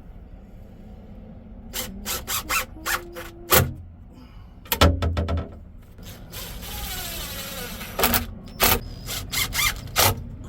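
Sharp clicks and knocks from work on wooden cabinet doors and their latch hardware, with two heavier thumps in the middle and a stretch of rustling noise before a last run of clicks.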